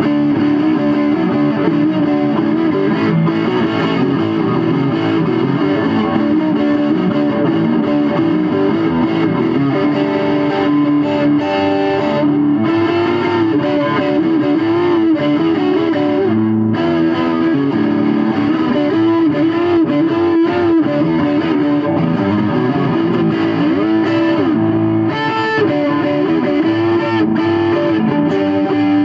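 Squier Stratocaster electric guitar played through a small amplifier with heavy gain. It plays a continuous distorted lead of quick single notes and held notes that waver in pitch.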